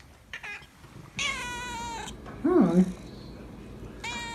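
Calico cat meowing to beg for food: two long, high, thin meows held at a steady pitch, one about a second in and another starting near the end. A brief, lower-pitched vocal sound comes between them.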